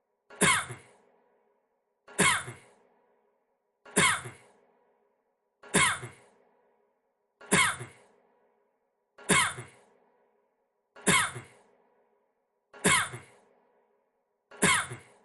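The same short cough from a man, looped: it repeats nine times at even spacing, about every two seconds, each with a sudden start and a quick fade.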